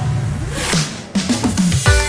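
Electronic background music: the beat drops out for a rising swoosh, then a few falling bass glides lead back into the beat near the end.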